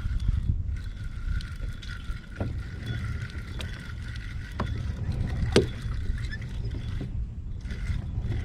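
A fishing kayak underway, with a steady low rumble of wind and water on the microphone and a constant high whine over it. A few sharp clicks and knocks come through, the loudest a little past halfway.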